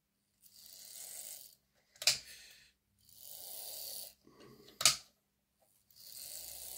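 Slow breathing close to the microphone, three breaths, with two sharp clicks between them, about two and five seconds in.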